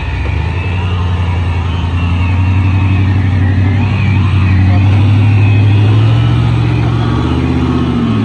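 Off-road vehicle's engine running hard under load while it climbs out of mud and up a bank on a taut winch line: a steady low drone that builds a little past the middle.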